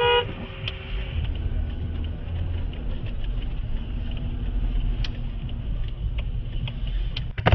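Car engine and road rumble heard from inside the cabin of the dashcam car as it moves off through the intersection. A short horn blast sounds at the start, and there is a brief loud noise near the end before the sound cuts off.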